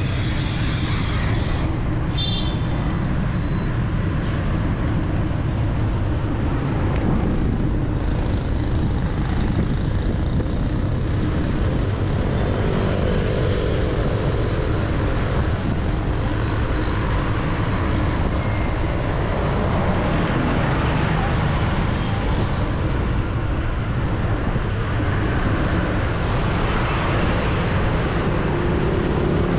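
Busy city street traffic heard from a moving bicycle: a steady, dense rumble of passing vehicles, with a brief high-pitched tone about two seconds in.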